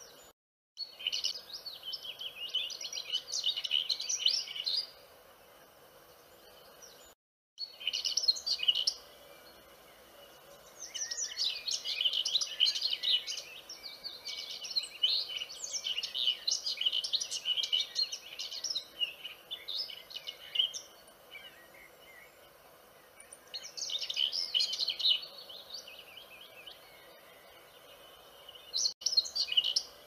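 Vernal hanging parrot calling: bouts of rapid, high-pitched twittering chirps lasting a few seconds each, with quieter pauses between them. The longest bout runs from about 11 to 21 seconds. Near the start, and again about 7 seconds in, the sound drops out briefly to dead silence.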